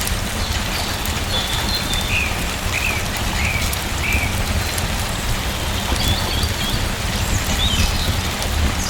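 Steady rain falling, with a low rumble beneath it. A small bird chirps over the rain: four short chirps in a row a couple of seconds in, and a few higher calls later on.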